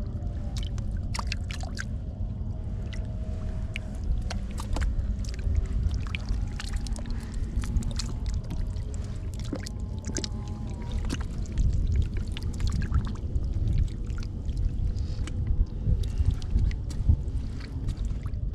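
Water splashing and sloshing, with many irregular small clicks and splashes over a steady low rumble.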